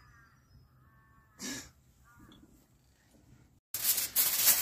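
Faint soft calls from an Australian magpie, a few short squawks with a brief rustle about a second and a half in. Near the end the sound cuts to loud crinkling of aluminium foil being wrapped around a potato.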